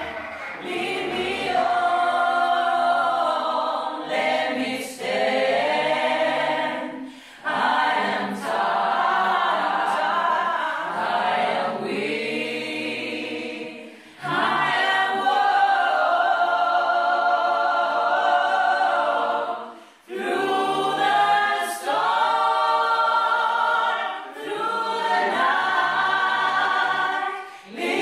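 Small a cappella gospel choir singing held chords in harmony, in phrases of a few seconds with brief breaks between them.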